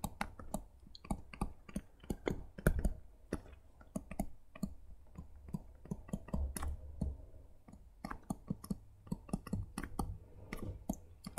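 Stylus tapping and clicking against a tablet screen during handwriting: a quick, irregular run of small clicks, several a second.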